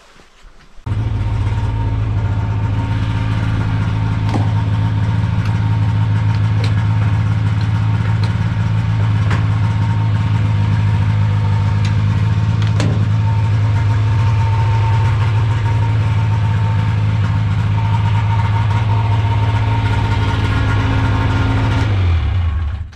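Lynx snowmobile engine running at a steady idle. It comes on suddenly about a second in and cuts off just before the end.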